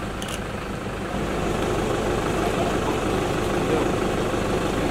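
An engine running steadily at idle, a low drone that grows slightly louder about a second in.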